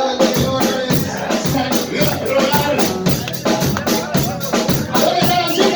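A banda playing live: music with a fast, steady drum beat, with voices mixed in.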